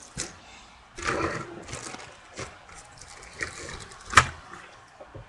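Clear plastic parts bags crinkling and rustling as they are handled, with a few small clicks and one sharp knock a little after four seconds in.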